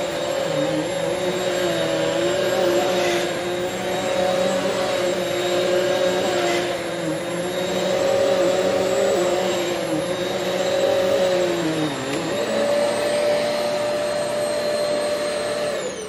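Hoover Swivel XL Pet upright vacuum running on a rug, a steady motor whine with its brushroll driven by a good belt. Its pitch sags briefly about twelve seconds in, then recovers, and it starts to wind down at the very end.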